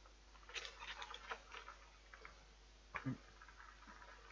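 Plastic chocolate-box tray crinkling and clicking as it is handled, with one dull knock about three seconds in.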